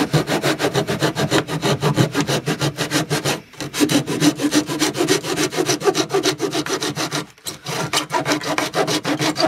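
Small hand saw cutting through the model viaduct's arches with quick back-and-forth strokes, about five or six a second. It pauses briefly twice.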